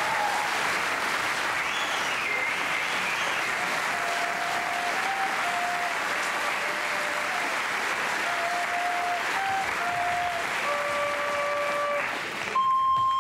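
Studio audience applauding, with a few held recorder notes faintly beneath it. Near the end the applause stops and a wooden recorder, played through the nose, sounds clear steady notes.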